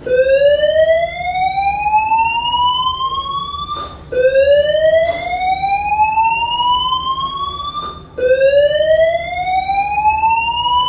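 School fire alarm voice-evacuation system sounding its slow-whoop tone: a loud rising sweep about four seconds long, repeated three times, each one starting low and climbing steadily in pitch before cutting off.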